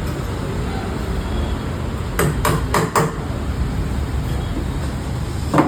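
Four quick hammer blows about two seconds in, then a single louder one near the end, over steady background noise.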